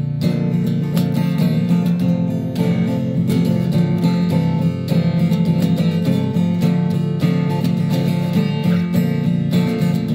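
Acoustic guitar music with strummed chords, playing steadily.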